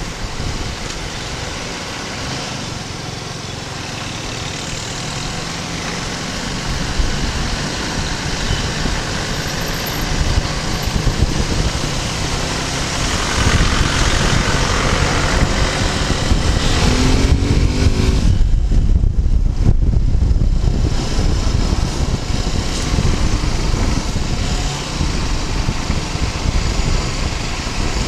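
Suzuki Gixxer 250 motorcycle riding through town traffic: its single-cylinder engine runs under a steady haze of wind and road noise, which grows louder about halfway through.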